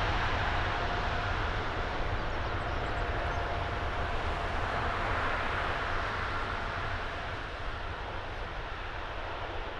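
Boeing 777-300ER's GE90 turbofan jet engines running as the airliner rolls along the runway. A steady rumble and hiss carries a faint whine, and it gradually fades as the aircraft moves away.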